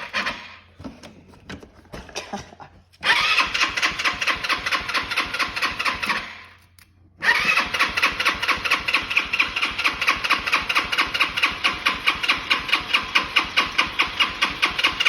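Electric starter motor of a GY6 single-cylinder four-stroke scooter engine cranking it, jumped straight from the battery: two cranking runs with a steady pulse of about four beats a second, the first about three seconds in and stopping briefly, the second starting again a second later and running on. The engine does not catch.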